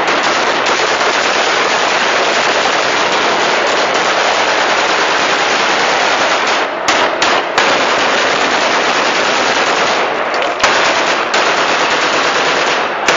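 Several AK-47 rifles firing on automatic at once, overlapping into a near-continuous stream of shots, with brief breaks about seven and ten seconds in.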